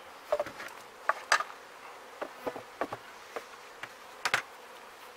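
Honey bees buzzing around an open hive, a string of short buzzes as single bees fly close past the microphone.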